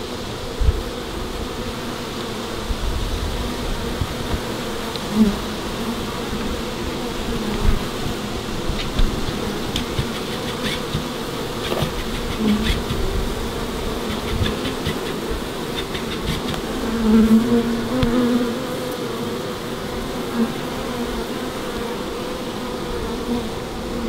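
Honey bees of a newly installed colony buzzing around the hive, a steady droning hum. It swells for a moment several times as single bees fly close, most strongly about two-thirds of the way through.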